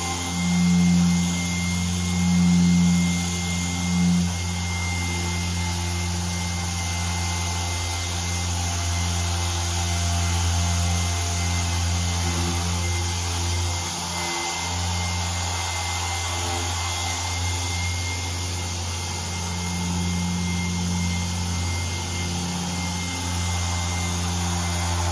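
Handheld dual-action polisher running steadily on a car door during paint correction with a finishing polish, a continuous motor hum that swells a few times in the first few seconds and dips briefly about halfway through.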